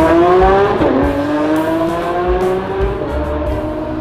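Lamborghini supercar engine accelerating hard from a standing start, its pitch climbing, dipping once for a quick upshift about a second in, then climbing again as it pulls away and slowly fades.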